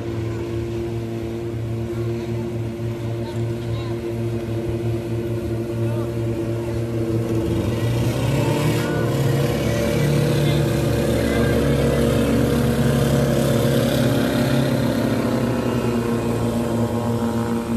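Water-jet boat's engine running steadily at speed. It grows louder about halfway through as the boat passes close, then eases off slightly near the end.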